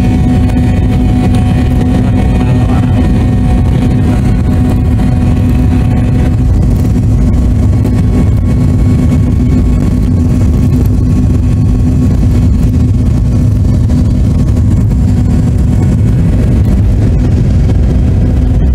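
Inside the cabin of an MD-82 airliner on its takeoff roll: the rear-mounted Pratt & Whitney JT8D turbofans running at takeoff power, a loud, steady rumble with a low hum.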